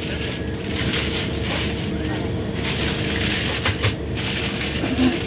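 Scania K320IB4 coach with Irizar i4 body on the move, heard from inside: steady engine drone and road rumble, with rattles and knocks from the body and fittings, a sharper knock near the end.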